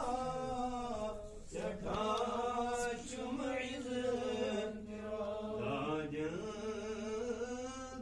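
A solo voice chanting in long, drawn-out notes that waver and slide in pitch, with short breaks between phrases.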